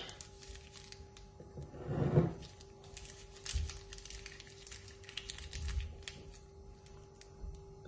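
Faint crinkling and small clicks of a parchment-paper piping cone being squeezed as melted Nutella is piped out, over a steady faint hum. One short louder sound about two seconds in.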